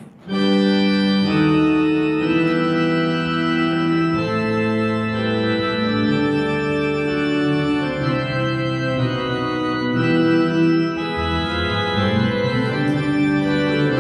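Organ playing slow, sustained chords, coming in suddenly right at the start.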